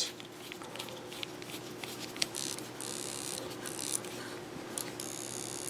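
Faint scraping and rubbing from a small screwdriver turning the retaining screw into a plastic servo horn on an RC servo's output shaft, with a few light clicks. Two short spells of raspy scraping come about two and five seconds in.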